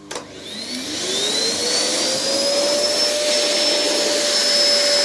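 Vacuum cleaner switched on: a click, then the motor spins up with a whine rising in pitch for about two seconds before it settles into a steady run.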